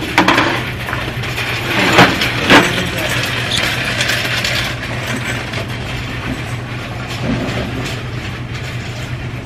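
Candle jars being picked up and set down, with sharp knocks right at the start and twice about two seconds in. Under them runs a steady rattling clatter.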